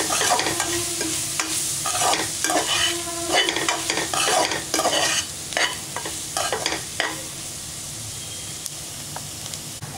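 A spatula stirring and scraping a frying onion-and-spice masala around a metal pot, over a steady sizzle: the spice powders and salt being mixed into the fried onions. The stirring stops about seven seconds in, leaving only the sizzle.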